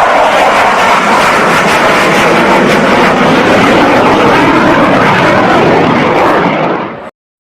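Fighter jet sound effect: a loud, steady rush of jet engine noise that fades out near the end and cuts to silence.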